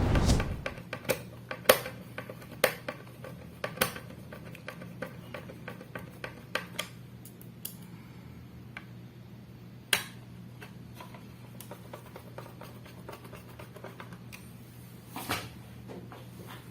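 Small screws being fitted and driven with a screwdriver into a laptop's SSD drive bay: a dull thump at the start, then scattered sharp metallic clicks and taps of the screwdriver and screws on the laptop's frame.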